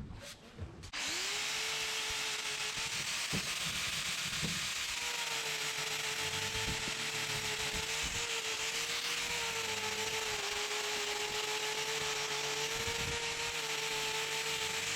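Angle grinder fitted for hoof trimming, spinning up about a second in and then running at a steady pitch as it grinds down and rounds off the ends of a cow's claws.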